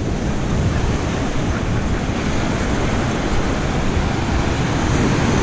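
Ocean surf washing up on the beach in a steady rush, with wind buffeting the microphone.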